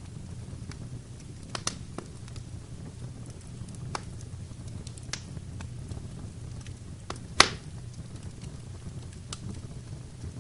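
Wood fire burning in a fireplace, crackling and popping: scattered sharp snaps over a steady low rumble, the loudest pop about seven seconds in.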